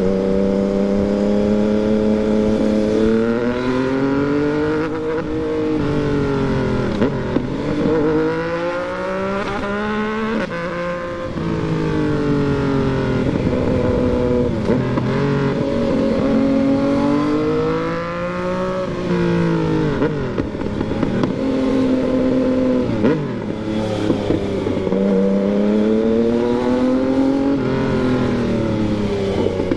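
Yamaha MT-09's inline three-cylinder engine heard on the move, its pitch rising and falling several times as the rider accelerates and rolls off the throttle.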